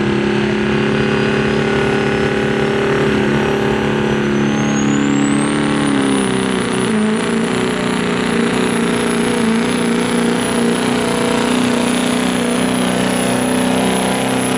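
Chevrolet Silverado's turbocharged Duramax diesel V8 running hard under load as it pulls a weight-transfer sled. A turbo whistle rises about four to six seconds in and then holds as a high, steady whine. The engine note dips slightly twice along the way.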